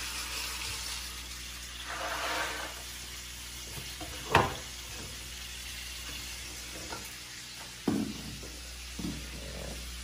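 Steady sizzle of food frying in a pan, with a few sharp knocks and clicks from the dishwasher being handled. The loudest knock comes about four seconds in and another near eight seconds.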